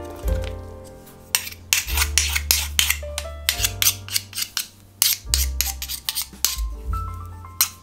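A metal spoon clinking and scraping against a metal springform pan as thick batter is spread, a quick run of clicks through the middle and another near the end. Background music with a steady bass line plays throughout.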